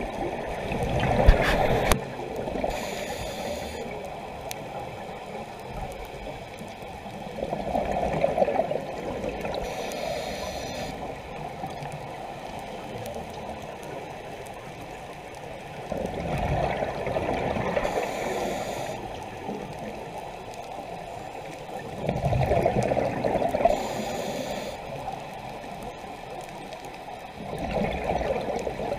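Scuba diver breathing through a regulator, heard underwater: a loud bubbling gurgle of exhaled air about every six seconds, five times, with a short faint hiss in between.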